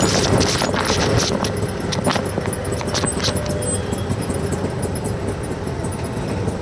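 Auto-rickshaw ride from inside the passenger compartment: the small engine runs steadily under the rattle of the open metal body. The clicking and rattling are thick at first and ease off about halfway through as the vehicle slows in traffic.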